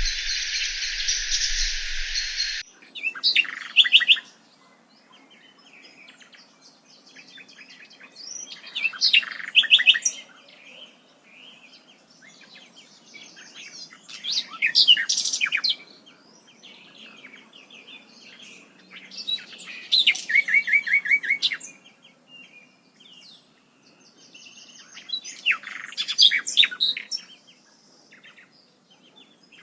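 A bird singing, repeating a loud phrase of rapid notes about every five to six seconds, with softer calls in between. For the first couple of seconds a steady high insect buzz sounds, and it cuts off abruptly.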